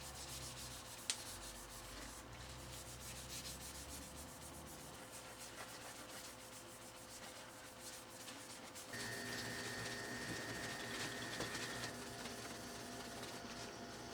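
A Bakelite utensil handle being rubbed by hand with an abrasive, a faint, quick, scratchy rubbing. About nine seconds in a faint steady high tone comes in for about three seconds.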